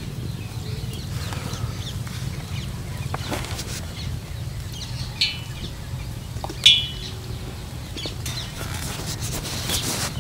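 Birds calling a few times in short, high calls, the loudest about two-thirds of the way through, over a steady low rumble.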